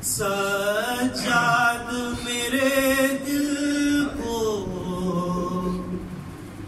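A man reciting a noha, a Shia lament in Urdu, singing solo into a microphone in long held notes that slide up and down in pitch.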